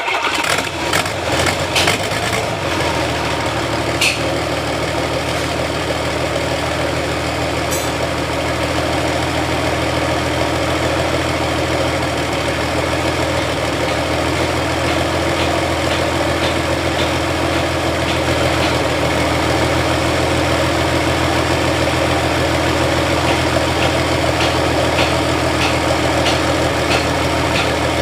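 A motor-vehicle engine that has just fired up, a little uneven for the first couple of seconds and then idling steadily.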